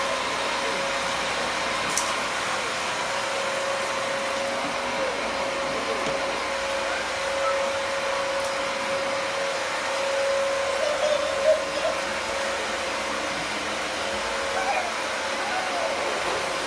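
Household vacuum cleaner running steadily, a constant motor whine over a rushing air noise. A few short high voice sounds break in about eleven seconds in and again near the end.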